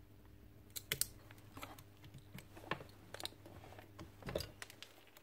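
A handful of sharp clicks and snips from hand wire cutters working a short lead, taking off the damaged end of a broken connection. The loudest come about a second in and again near the end.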